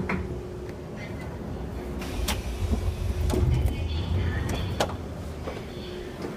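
Subway train running, a low rumble with a faint steady hum that swells for a couple of seconds in the middle, with a few sharp clicks and knocks.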